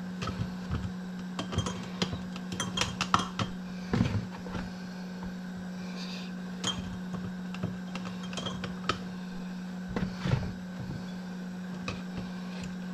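Cooked potato chunks being spooned with a slotted spoon through a plastic canning funnel into glass jars: irregular knocks and clinks of the spoon on the funnel and of potato pieces dropping into the jars. A steady low hum runs underneath.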